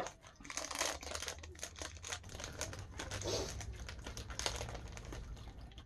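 Plastic candy bag crinkling and crackling in the hands as it is opened, with a low rumble of handling underneath.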